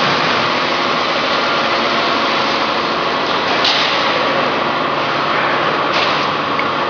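Steady machinery running noise, with a faint whine, and a short sharp click a little past halfway.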